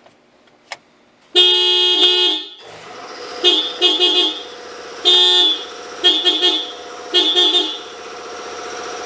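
Scion FR-S car horn sounding: one long blast about a second in, then a string of short honks with another longer blast in the middle, the horn being tested through the newly fitted clock spring. A steady hum runs underneath from about three seconds on.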